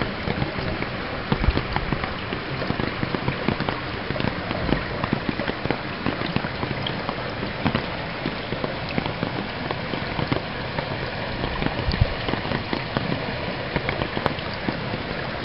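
Shallow floodwater over a road, giving a steady watery patter and splash dotted with small ticks, with a few low bumps now and then.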